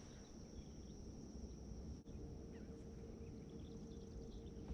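Quiet outdoor ambience: a low rumble, a steady thin high tone, and a few faint, scattered bird chirps.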